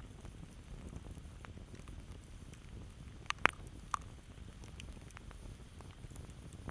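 Campfire crackling: scattered small pops and snaps over a low rumble of burning wood, with one sharp, much louder pop about halfway through and a smaller one just after.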